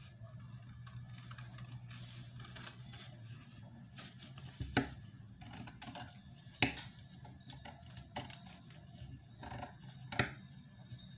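Metal tailor's shears cutting through fabric: a run of crisp snips and rustling, with a few sharper clicks about five, six and a half and ten seconds in.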